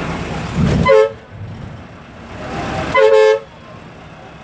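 Vehicle horn honking twice: a short toot about a second in, and a slightly longer one about two seconds later.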